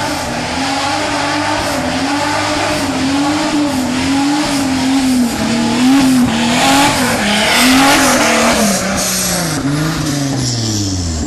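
Off-road buggy's engine revving hard, its pitch rising and falling again and again, then the revs dropping away near the end.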